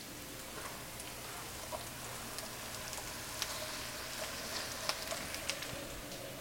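Sliced onions sizzling in olive oil in a frying pan: a steady crackle with scattered small pops.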